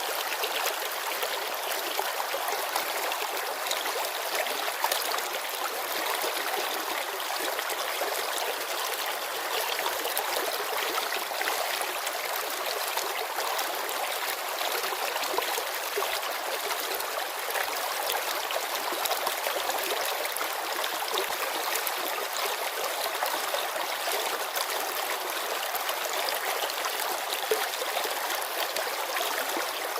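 Mountain stream babbling over river stones: steady water rush with fine trickling and splashing.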